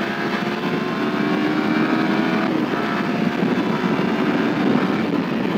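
Yamaha R15 V3's 155 cc single-cylinder engine running at road speed, its pitch drifting as the bike slows and picks up, with wind noise on the microphone.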